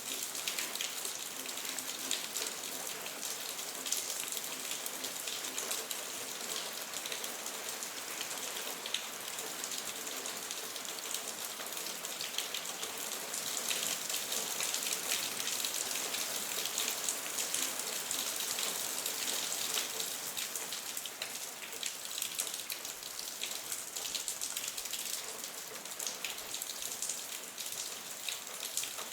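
Steady city rain falling, an even hiss thick with fine drop ticks.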